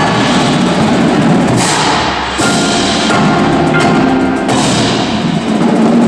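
Indoor percussion ensemble playing: marimbas and vibraphones of the front ensemble with drums, loud and dense, with a brief break about two seconds in before a fresh hit.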